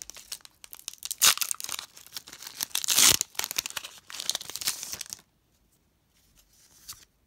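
Foil wrapper of a Pokémon XY Evolutions booster pack crinkling and being torn open by hand, with sharp rips about a second in and near three seconds. The rustling stops about five seconds in.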